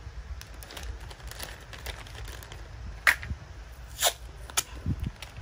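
Handling noise of a cardboard product box and plastic packaging on a table: scattered light taps and rustles, with sharp clicks about three and four seconds in.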